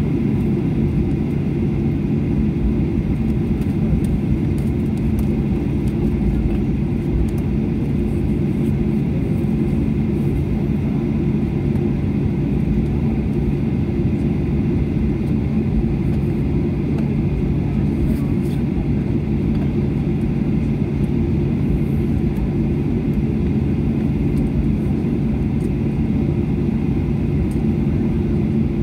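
Airliner taxiing on the ground, heard from inside the cabin: a steady low rumble and engine hum with a few constant tones, unchanging throughout.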